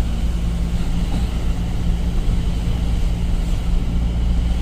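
Truck engine running at a steady pace while driving, heard from inside the cab as an even low drone with road noise.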